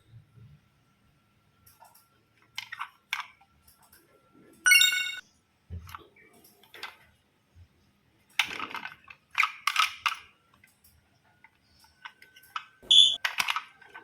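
Plastic toys being handled, with scattered clicks and rattles, and a short electronic toy beep about five seconds in and another brief tone near the end.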